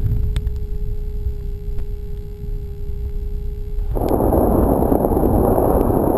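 A small biplane's engine runs at low power as the plane taxis over grass: a low rumble with a steady whine. About four seconds in, a loud rushing noise comes in over it and stops abruptly.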